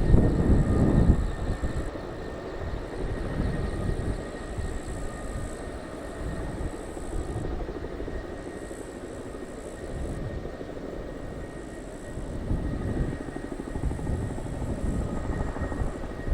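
Kamov Ka-27-family coaxial-rotor helicopter in flight: a fluctuating rotor rumble under a faint steady high turbine whine, loudest in the first second or so.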